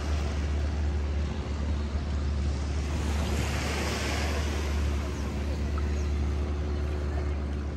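Sea surf washing onto a sandy beach over a low, steady rumble, one wave swelling up and washing out a little before the middle.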